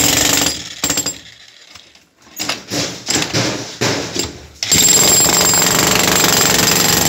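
Handheld electric demolition hammer with a chisel bit breaking concrete. It runs in short bursts with brief pauses at first, then runs continuously from about two-thirds of the way in.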